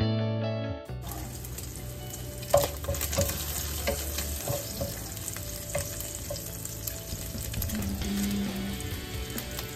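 Diced bacon sizzling in a frying pan, stirred with a wooden spatula that knocks against the pan now and then. Guitar music ends about a second in.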